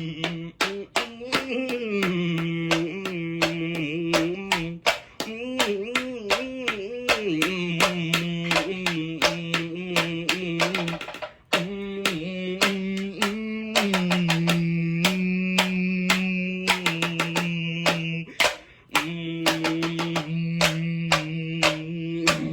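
A low voice humming long held notes that wobble and step in pitch now and then, over quick, uneven tapping clicks.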